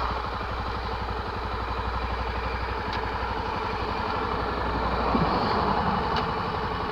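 Honda XR250 Tornado's single-cylinder four-stroke engine idling with an even, steady beat.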